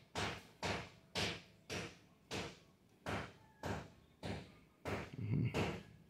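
A series of short knocks, roughly two a second and somewhat uneven, with a heavier knock about five seconds in.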